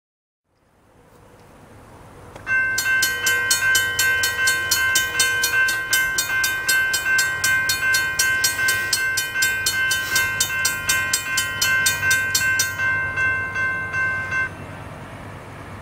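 Railroad crossing bells ringing with rapid, evenly repeated strikes while the crossing gates lower. They start about two and a half seconds in, the strikes stop near 13 s, and the ringing cuts off abruptly at about 14.5 s once the gates are down.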